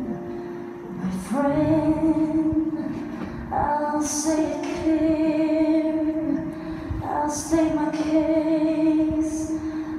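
A woman singing a song in long held notes over musical accompaniment, with three sung phrases in turn.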